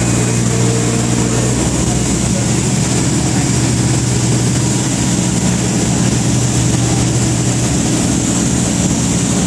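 Vessel's diesel engines running steadily, a loud, even drone with a constant low hum and a hiss over it.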